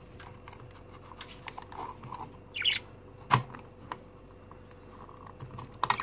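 Plastic cage feeder cup clicking and rattling against the wire bars of a budgie cage as it is fitted in place, with a sharp click about three seconds in and another near the end.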